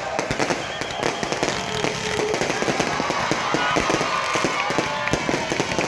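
Fireworks going off in a dense, continuous barrage of rapid pops and crackling bangs, many overlapping, at a steady loud level.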